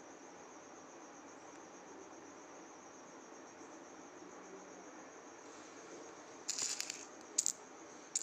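Old metal coins clinking: a short cluster of sharp clicks about six and a half seconds in, a single sharp click a moment later and another at the very end. Under them runs a steady, high-pitched insect chirring.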